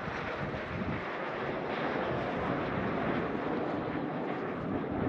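Jet noise from the team's PZL TS-11 Iskra turbojet trainers, a steady rushing sound that slowly grows louder, with some wind on the microphone.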